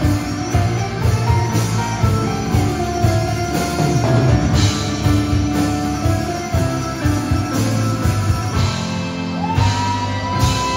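Live rock band playing with electric guitar, electric bass and drum kit. Near the end, one note slides up and is held.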